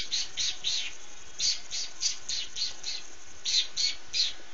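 Domestic cat hissing again and again in short, sharp hisses, about three a second, in three runs with brief pauses between them.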